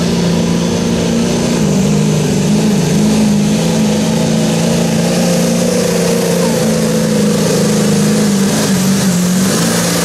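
Chevrolet Silverado 2500HD's Duramax 6.6-litre V8 turbo-diesel at full throttle under heavy load, pulling a weight-transfer sled. It holds steady, loud revs with a few brief dips.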